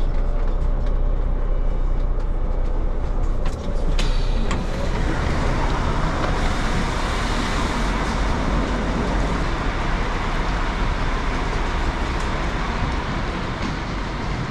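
Steady low rumble of a running vehicle; about four seconds in, a loud steady hiss rises over it and holds.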